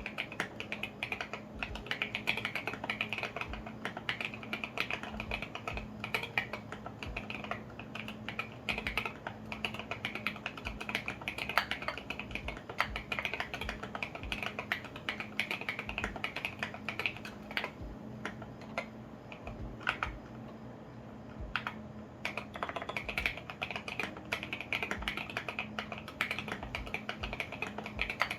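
Typing on a custom mechanical keyboard: a KBDFANS Tofu65 acrylic case with lubed, filmed Alpaca V2 linear switches and tall SA ABS keycaps, giving a dense, quick run of keystroke clacks. The typing thins out briefly about two-thirds of the way through.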